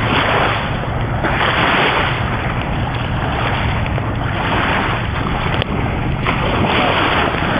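Waves washing onto the beach, mixed with wind blowing across the microphone: a loud, steady rush that swells and eases every second or two.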